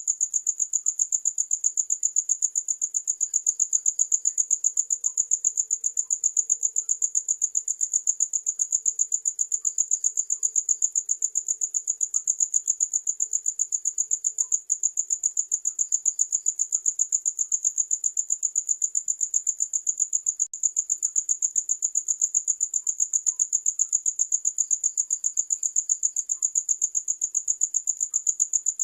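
Cricket chirping without a break, a high-pitched, even pulse of about six chirps a second.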